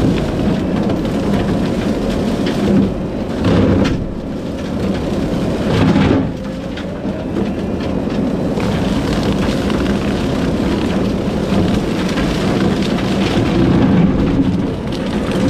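Kubota SVL75-2 diesel compact track loader running a Skidpro brush cutter head: a loud, steady machine rumble with the cutter's dense churning noise. Two brief louder surges come in the first half.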